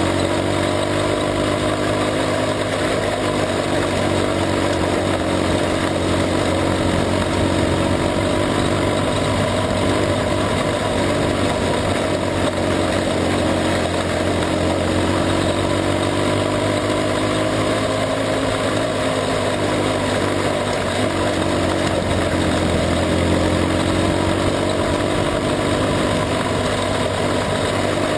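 Jr sprint car engine heard from on board, running under race load on a dirt oval. Its pitch rises and falls gently in slow waves through the corners and straights, over a steady rush of noise.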